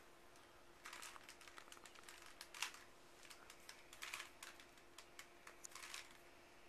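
Rubik's cube being turned quickly by hand: faint bunches of rapid plastic clicks and rattles as the layers twist, coming in short runs every second or so.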